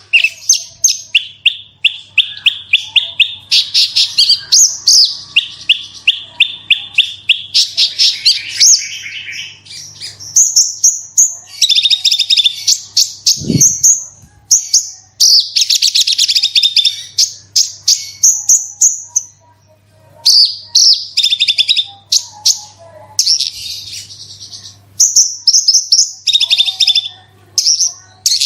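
Javan bush lark (branjangan) singing a long, loud, fast song of rapid repeated high trills and chattering phrases, broken by short pauses. A single low thump sounds about halfway through.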